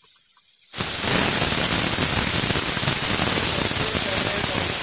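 Cumin seeds dropped into hot mustard oil start sizzling about a second in, a loud, steady hiss that begins abruptly.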